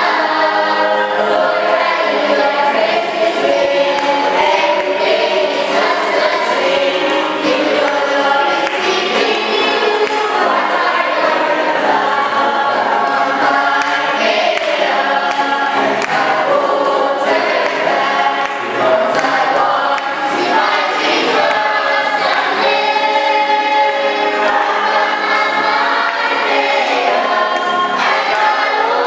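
A choir singing, many voices together in held, shifting chords at a steady level.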